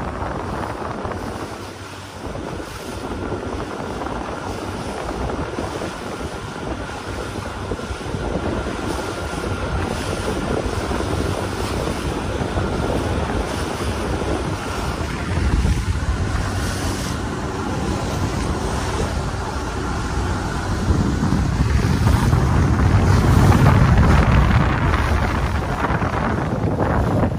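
Wind buffeting the microphone on a moving small boat, mixed with the rush of sea water past the hull. The low rumbling grows heavier about halfway through and strongest a few seconds before the end.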